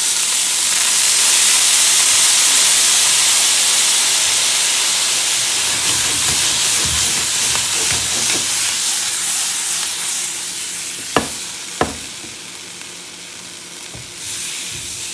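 Soy sauce poured into a hot frying pan of vegan sausages: a loud sizzle that flares up at once and slowly dies away as the liquid steams off. About eleven seconds in, two sharp taps against the pan.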